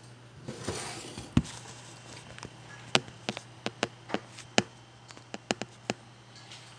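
Irregular sharp taps and clicks of hands handling things close to the phone, about a dozen over several seconds, with a short soft rush about a second in.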